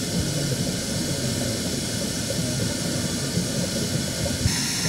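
Kaaterskill Falls' waterfall roaring, a steady, dense rushing noise with a hiss above it. The hiss changes abruptly near the end.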